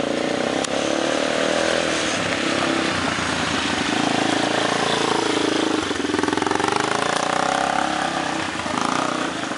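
Small quad bike (ATV) engine running as it is ridden, its pitch rising and falling with the throttle.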